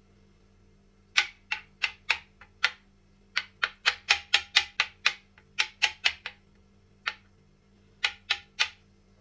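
A metal utensil clinking against dishware: about two dozen sharp, irregular clicks in three groups, each with a brief ring.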